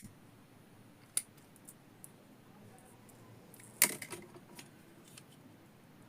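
A handheld lighter being struck and handled: a few short, sharp clicks, the loudest about four seconds in.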